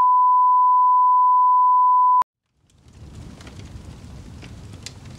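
Steady 1 kHz reference test tone for the colour bars, cutting off abruptly about two seconds in. After a brief silence, a low rumbling noise with scattered crackles fades in.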